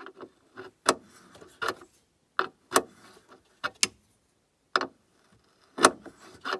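Metal wrench working a bolt in a car's engine bay, giving about a dozen sharp metallic clicks and knocks at uneven intervals as the bolt is loosened.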